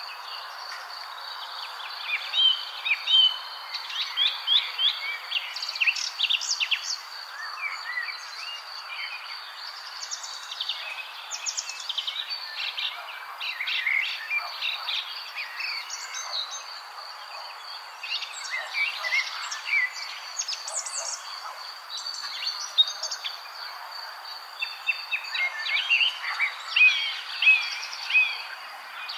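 Birds chirping in quick, scattered calls over a steady high-pitched insect-like tone and a soft hiss.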